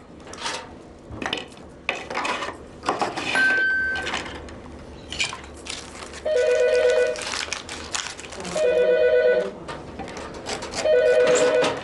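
A telephone ringing three times, each ring about a second long, made of two steady tones together, with the rings about two and a half seconds apart. Before the ringing, china cups, plates and cutlery clink.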